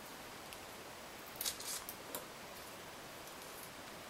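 Floral tape being stretched and wound by hand around thin wire: a few soft crackles about a second and a half and two seconds in, over a faint steady hiss.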